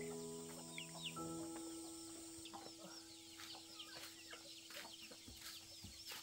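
Faint chickens clucking and chirping, with many quick, high, falling peeps. Background music fades out in the first second or two, leaving one long held note.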